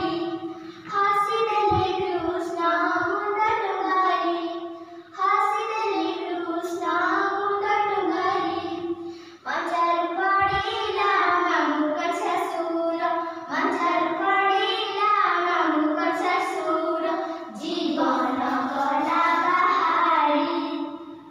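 Young girls singing an Odia devotional children's song in sustained, melodic phrases. There are a couple of brief low thumps, about two seconds in and again about ten seconds in.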